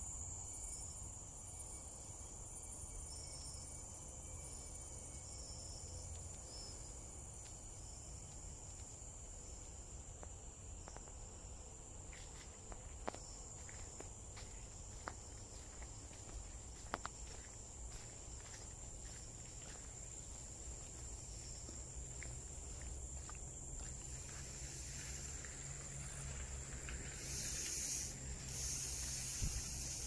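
Steady high-pitched insect chorus in tropical forest, with scattered clicks and crunches of footsteps on the trail in the middle, and a louder hissing buzz for about two seconds near the end.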